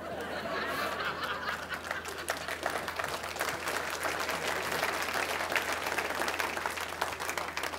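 Audience applauding, steady and dying down near the end.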